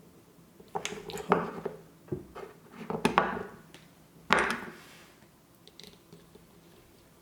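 Plastic plug parts and a small tool being handled on a work surface: a handful of sharp clicks and knocks with brief rattles, the loudest about three and four seconds in.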